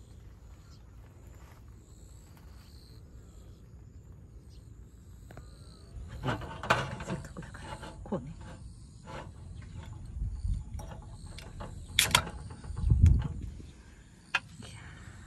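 Aluminium beer can opened by its ring-pull: a few light handling clicks, then one sharp crack of the tab near the end, followed by a dull low bump.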